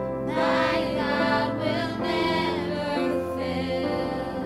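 Christian worship song: several voices singing over sustained instrumental chords from a church band.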